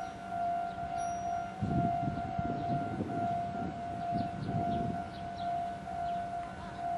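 Electronic warning bell of a Meitetsu level crossing sounding without pause, a steady high tone: the crossing is closed with the barriers down for a train. A low rumbling noise joins it from about two seconds in to about five.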